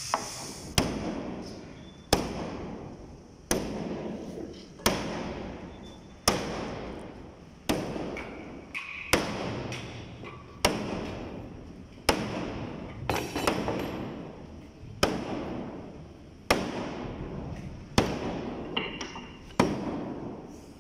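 Heavy hammer blows on the hull planking of a traditionally pegged wooden boat: a steady run of about fourteen strikes, one roughly every second and a half, each a sharp thud that dies away.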